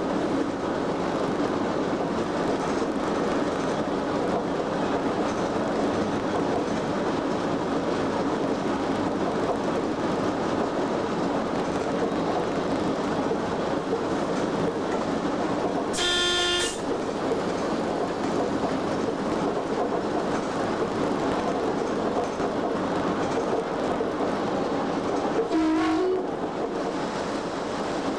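Cab of a Class 87 electric locomotive on the move: steady running and rail noise. About halfway through a brief pitched signal sounds once, and a weaker one sounds near the end.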